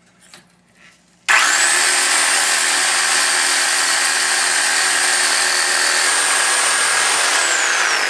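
Handheld electric power tool starting up suddenly, running on metal with a harsh noise and a steady high whine, then spinning down near the end as the trigger is let go.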